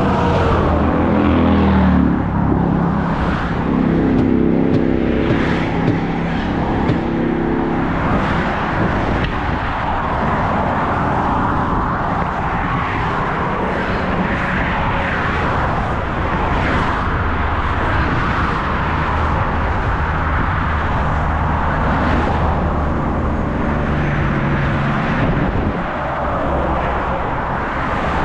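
Car engine and road noise from highway traffic, steady throughout, with engine tones that shift in pitch in the first few seconds and again later on.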